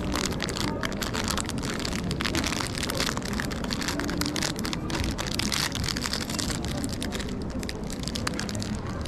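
Clear plastic food packaging crinkling as it is handled and unwrapped close up: a dense, irregular crackle. A steady low hum runs underneath.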